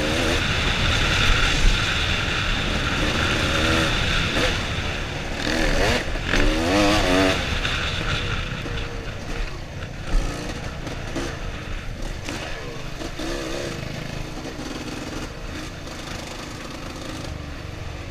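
Suzuki RMX 250 two-stroke single-cylinder dirt bike engine being ridden, revving up and down with the throttle so that its pitch rises and falls again and again. It runs hardest in the first half and eases off toward the end.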